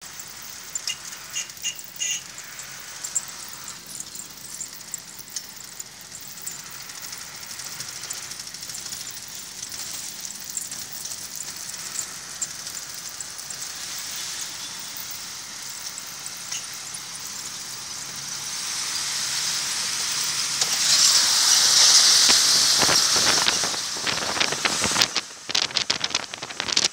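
Wind and road noise rushing past a moving vehicle, a steady hiss with a few light squeaks early on. It swells to a loud rush about two-thirds through, then turns gusty and buffeting near the end.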